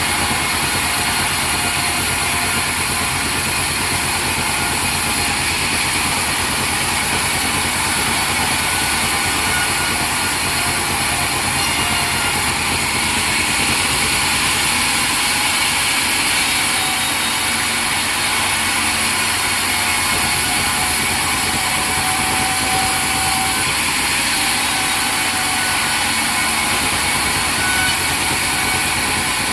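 Sawmill machinery running steadily: a loud, unbroken mechanical din with many steady whining tones.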